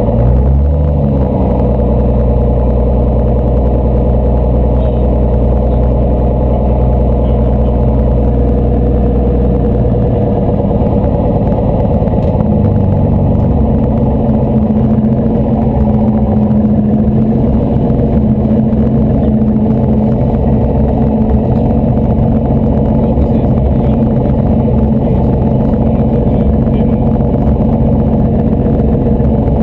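Slingsby T-67 Firefly's piston engine and propeller running as the plane taxis, heard from inside the cockpit. The engine note rises about a second in and again a little before halfway, then holds steady.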